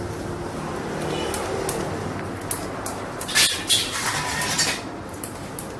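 Short metallic clinks and clatter over steady background noise, busiest from about three to five seconds in.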